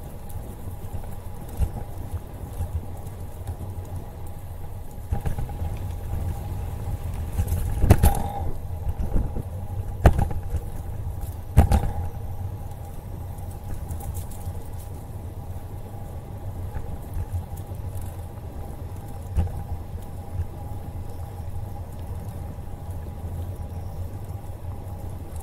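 Bicycle rolling along a paved trail, heard from a camera on the bike: a steady rumble of tyres and wind on the microphone with a faint steady hum. Three sharp knocks come about 8, 10 and 12 seconds in.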